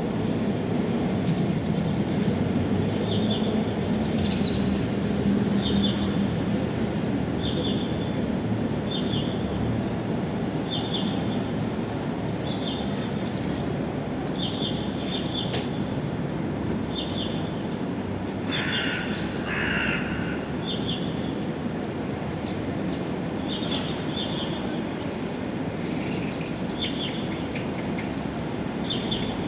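Birds singing: one bird repeats a short high call about once a second, and a second, lower two-part call comes about two-thirds of the way through. Under them runs a steady low rumble of background noise.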